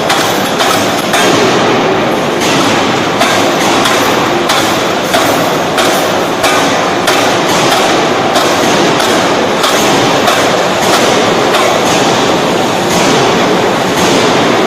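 Anyang C66 series hydraulic open die forging hammer striking in a rapid continuous run of blows, about two to three a second, over a steady loud din of machinery.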